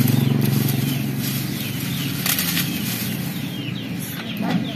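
Dry twigs and brushwood rustling and snapping as they are pulled from a pile and broken up for kindling, with a short burst of crackling about halfway through. Under it runs a steady low hum, and birds chirp throughout.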